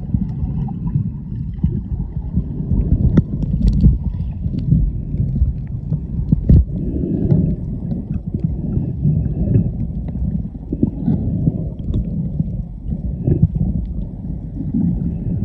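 Underwater sound picked up by a camera just below the surface: a low, uneven rumble of moving water with scattered sharp clicks and crackles.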